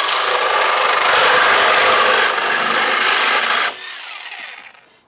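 Power cutting tool cutting through the wrecked car's metal, running steadily for about three and a half seconds, then stopping and winding down with a falling whine.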